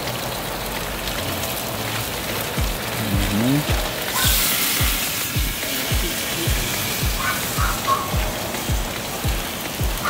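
Afrobeat background music with a steady kick-drum beat about twice a second. About four seconds in comes a short burst of hissing sizzle, as duck fat hits the hot gas grill.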